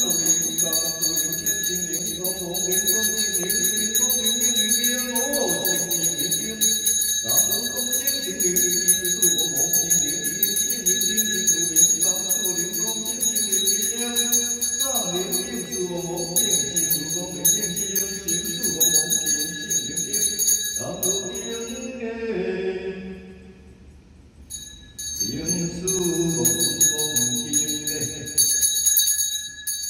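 Taoist ritual hand bell shaken continuously, giving a steady high ringing, over a man's chanting. The bell stops for a few seconds about 22 seconds in, then rings again.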